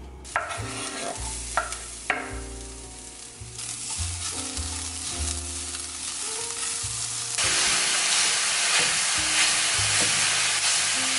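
Diced onions sizzling in olive oil in a nonstick skillet as a spatula stirs them, with a couple of sharp knocks about two seconds in. About seven seconds in the sizzle becomes much louder as ground beef browns in the pan. Background music with a bass line plays underneath.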